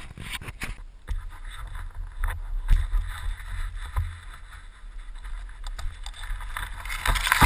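Wind and riding vibration buffeting a helmet-mounted camera's microphone as a low, steady rumble, with scattered knocks and brush scraping past.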